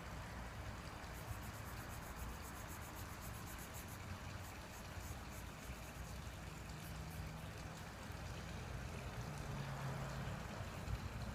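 Marker tip rubbing on paper in repeated colouring strokes, faint, over a steady low hum.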